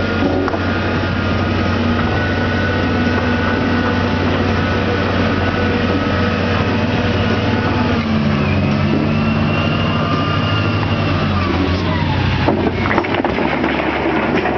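JCB backhoe loader's diesel engine running steadily. About eight seconds in, the engine note rises under load with a high whine, then drops back near twelve seconds.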